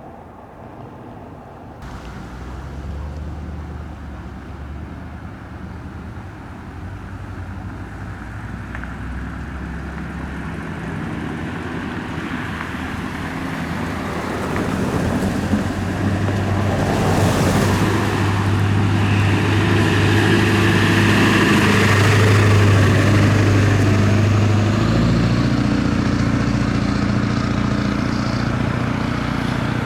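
A vehicle's motor running with a steady low hum that steps up in pitch twice and grows louder as it gathers speed, with a brief rushing hiss partway through.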